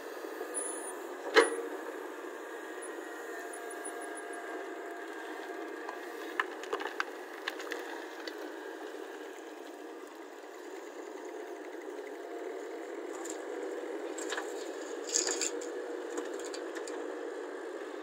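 CAT hydraulic excavator running steadily as it digs soil and loads a dump truck. Sharp knocks of the bucket against stone and earth: one loud clank about a second and a half in, a few smaller knocks around seven seconds in, and a clatter about fifteen seconds in.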